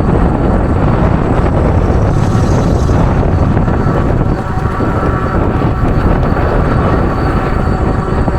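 Steady wind noise on the microphone of a rider moving along on an electric fat-tire bike, mixed with the bike's road and tyre noise.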